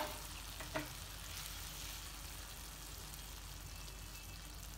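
Spinach and potato curry sizzling faintly and steadily in the pan, with a single light tap about three-quarters of a second in.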